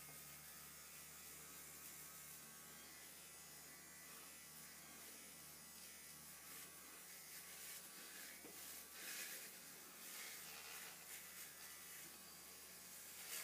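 Small battery-powered facial cleansing brush giving a faint, steady buzz as it is worked over a foam-covered face.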